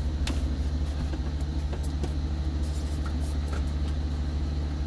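Steady low drone of an idling diesel engine heard inside a semi truck's sleeper cab, with a few light clicks over it.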